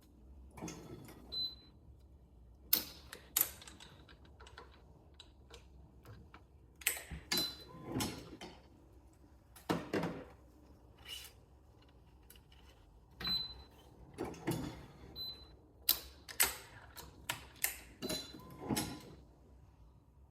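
Irregular clicks, knocks and short scrapes of hands working on a badminton racquet and stringing tools, with a few brief high pings among them.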